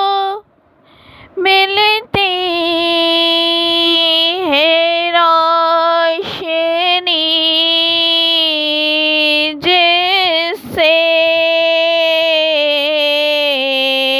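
A high solo voice sings an Urdu naat without accompaniment. It holds long drawn-out notes with wavering ornamental turns, after a brief breath about half a second in, and steps down to a lower note near the end.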